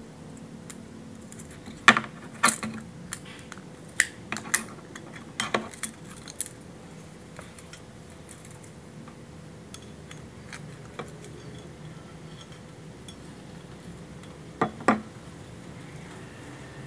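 Small metal clock parts, among them a brass geared mainspring barrel, clinking and knocking against each other and the wooden table as they are handled and set down. There is a run of sharp clinks about two to six seconds in and two more near the end.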